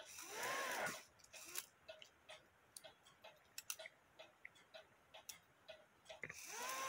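Cuckoo clock movement ticking faintly and evenly, about three ticks a second, after a breath near the start.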